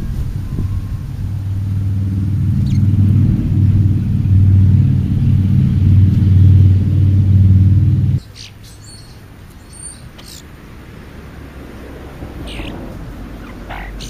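A loud, low engine hum that grows steadily louder and then cuts off abruptly about eight seconds in. After it stops, a few short bird chirps are heard.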